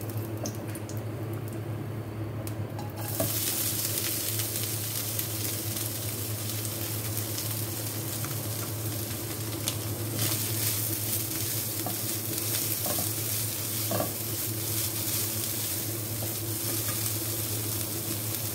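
Shredded boiled chicken hitting hot oil in a non-stick wok about three seconds in, then sizzling steadily as it is stirred and tossed with a silicone spatula, with a few light knocks of the spatula against the pan. A low steady hum runs underneath.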